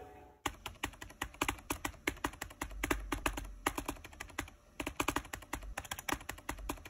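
Keyboard typing sound effect: rapid, irregular key clicks, several a second, starting about half a second in.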